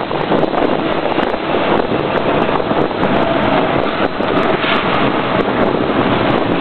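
Late model race car running steadily at speed on practice laps, its engine buried in heavy wind noise on the microphone.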